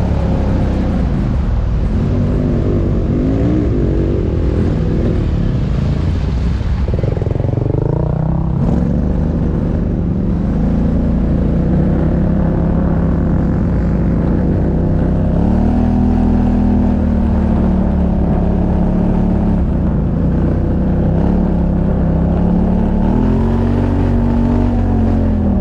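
Quad (ATV) engine running continuously under load, its pitch rising and falling as the throttle opens and closes, with a short rush of noise about seven seconds in.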